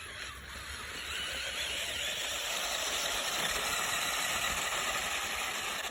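Remote-control side-by-side toy car running: a steady whirring hiss from its small electric motor and drivetrain, which gets a little louder about a second in.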